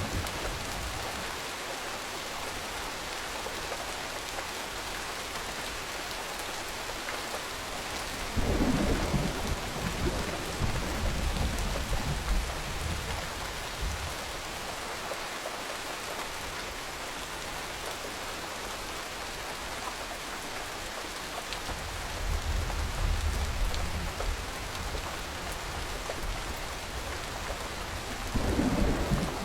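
Steady rain hiss with three low rolls of thunder: one about a third of the way in, one about two thirds in, and a shorter one near the end.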